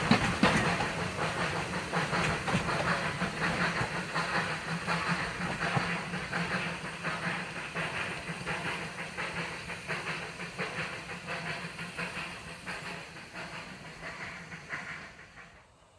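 Baldwin narrow-gauge steam locomotive hauling a passenger train away, its steam hiss and exhaust mixed with the carriages rolling over the rails. It fades steadily as the train recedes and cuts off abruptly just before the end.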